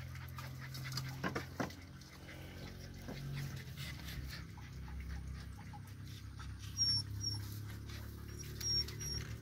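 Adult pit bull panting with her mouth open, with a few short, high chirps near the end.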